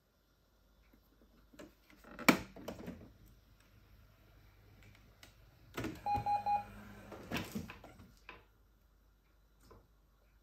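Brother MFC-440CN printer: its ink cartridge cover snaps shut with a sharp click about two seconds in. Around six seconds a control-panel button press brings a quick run of about four short beeps from the printer, amid clicking and clattering from the machine.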